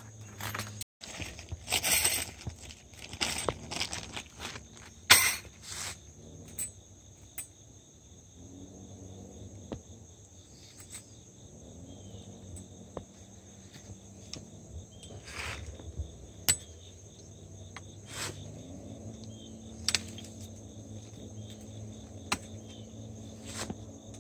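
Scattered metallic clicks and short scrapes from hands and pliers working barbed wire against a steel T-post, the sharpest click about five seconds in. Behind them is a steady high drone of insects.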